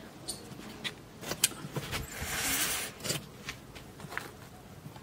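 Long iron tandoor rods clinking and scraping against the clay tandoor as rotis are pulled off its inner wall: a series of sharp clicks and knocks, the loudest about one and a half seconds in, with a short rushing noise near the middle.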